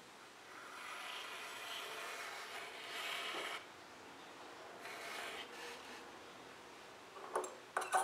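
Pen nib scratching across paper as a line is drawn: one long, rasping stroke of about three seconds, then a shorter one about a second later. Two sharp taps near the end.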